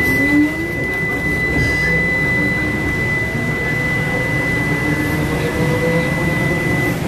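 Cabin of a Trolza-5265.00 Megapolis trolleybus: the electric traction drive's steady high whine over a low running rumble, with a lower whine slowly rising in pitch. The high tone cuts off shortly before the end.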